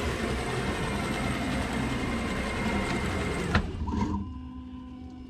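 CNC router starting its job. A steady rushing machine noise cuts off with a click about three and a half seconds in, leaving a quieter, steady motor hum as the machine moves.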